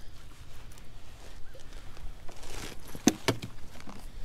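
Wind rumbling on the microphone, with a rustle and then two sharp knocks about three seconds in as a caught pike is handled at the landing net in a kayak.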